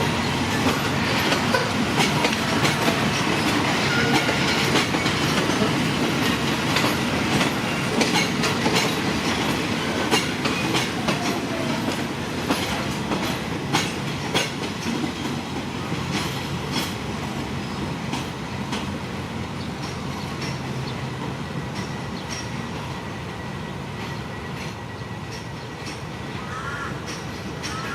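A train rolling slowly over rail joints and points, its wheels clacking and squealing on the rails, gradually fading.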